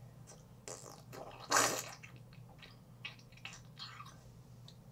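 A child's breathy mouth noises close to the microphone, a few short puffs and hisses, the loudest about one and a half seconds in, over a low steady hum.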